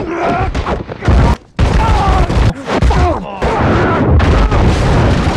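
Film fight sound effects: a rapid run of heavy blows and crashes as bodies slam together and through a concrete wall, with short grunts and yells between the hits.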